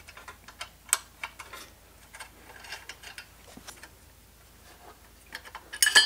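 An L-shaped Allen key working the end-cap screws out of a motorcycle exhaust tip: scattered small metal clicks and ticks, one sharper click about a second in. Near the end comes a quick run of louder metallic clinks that ring briefly as the end cap comes loose.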